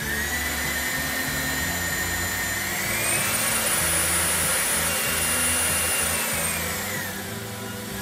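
Agaro Supreme cordless stick vacuum's 400-watt brushless DC motor running while its suction-mode button is pressed. The whine steps up in pitch at the start and again about three seconds in as the suction setting is raised, holds at the top setting, then drops back down near the end.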